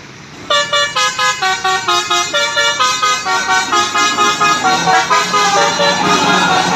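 Bus telolet horn, a multi-trumpet musical air horn, playing a fast tune of short stepped notes that starts sharply about half a second in. A low hum and a rushing noise build up under it in the last couple of seconds.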